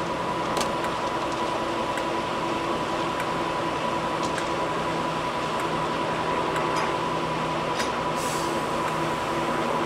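Class 42 'Warship' diesel-hydraulic locomotive with twin Maybach engines running steadily, giving an even drone with a high, steady whine over it.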